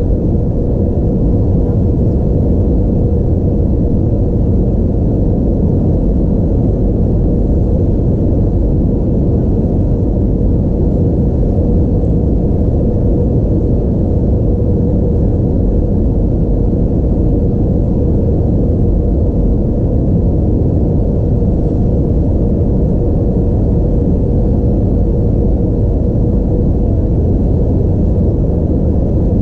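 Steady cabin noise inside an Airbus A320-232 during descent: a deep, even rumble of airflow and the IAE V2500 engines' drone, with a faint steady hum held throughout.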